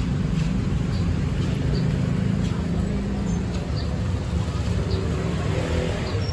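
Street traffic: a steady low rumble of idling and slow-moving car and motorbike engines in congested traffic.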